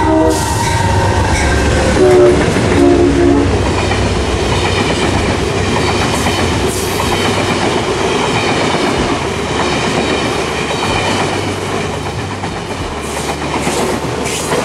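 Amtrak passenger train led by a GE Genesis diesel locomotive passing at speed. Its horn sounds at the start and again in a short blast about two seconds in, and then the passing cars make a steady loud rush of wheel and rail noise.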